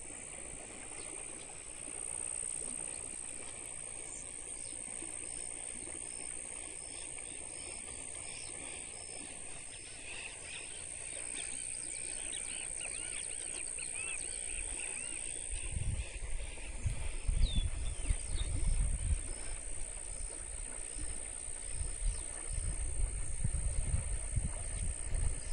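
Outdoor ambience by a rain-swollen river: a steady high insect drone with a few bird chirps. From about halfway on, gusts of wind buffet the microphone with low rumbles, the loudest sound here.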